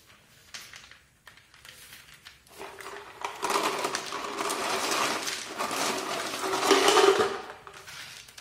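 Expanded clay pellets poured from a plastic jar into a clear PET-bottle orchid pot, a dense rattling clatter of pellets against plastic that starts about two and a half seconds in and stops abruptly about seven seconds in. A few light clicks of single pellets come before it.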